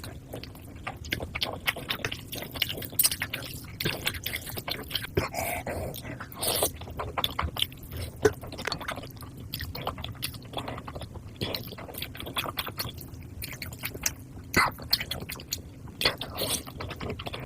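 Someone eating chicken, chewing and biting, with many short clicks throughout.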